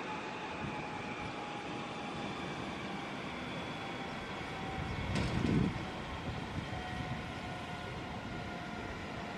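EC135 rescue helicopter idling on the pad: a steady turbine whine of several high tones over a rushing hiss. A brief low thump comes about five seconds in.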